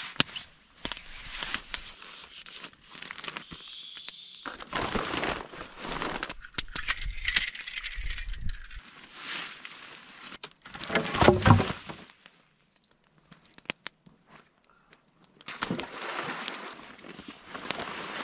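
Nylon sleeping bag rustling and crinkling in irregular bursts as it is packed away. It goes nearly silent for a few seconds past the middle, then starts again.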